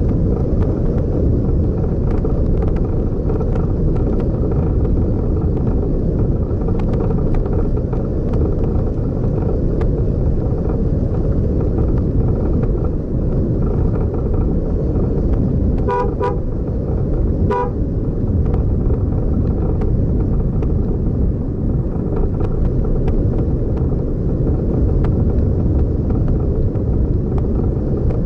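Steady low rumble of a motor vehicle driving on a road. Just past the middle a car horn gives two quick short toots, then one more about a second and a half later.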